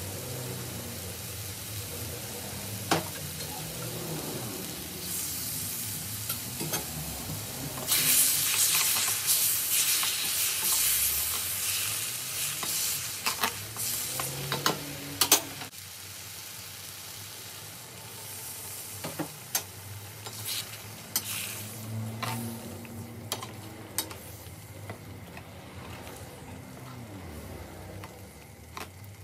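Chicken curry sizzling in a steel balti pan while a metal spoon stirs and scrapes it, with sharp clicks of the spoon against the pan. The sizzle is loudest for a few seconds about a third of the way in, then settles lower.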